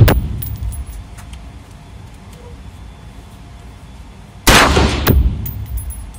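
DPMS AR-15 rifle fired in an indoor concrete range: a sharp shot about four and a half seconds in, a second bang about half a second later, and a long echoing decay. At the start the echo of the previous shot is still fading, with a few light metallic tinks.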